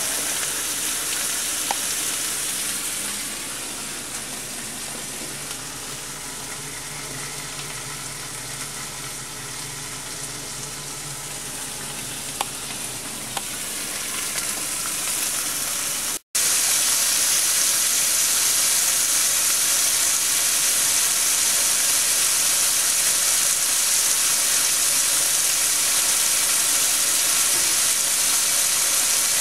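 Slices of hickory-smoked buckboard bacon sizzling in a nonstick frying pan. The steady sizzle breaks off sharply about halfway and comes back louder, with the slices further browned.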